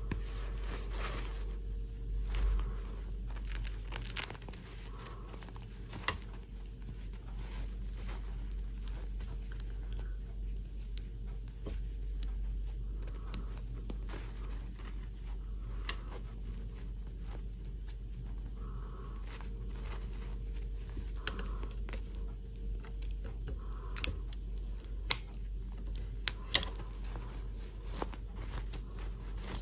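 A satin doll dress rustling and crinkling as it is worked onto a plastic fashion doll by hand, with light clicks of the doll's plastic limbs. Several sharper clicks stand out near the end, over a steady low hum.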